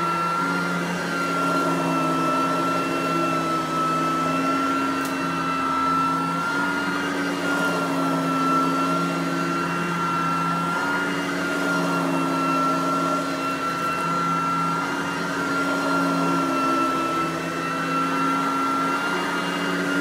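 Riccar Supralite Sand Trap lightweight upright vacuum running on carpet: a steady high motor whine over the brush roll. A lower hum changes every second or two as the vacuum is pushed and pulled. It runs on a new belt and new brush strips after repair.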